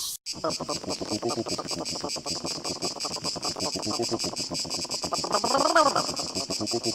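Insects chirping in a fast, even pulse. The sound starts abruptly after a brief gap just after the beginning, over a busy jumble of lower sound.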